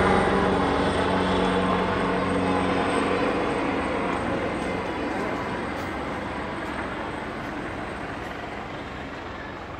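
Coast guard helicopter flying away: a steady low drone of rotor and engines that fades steadily as it moves off.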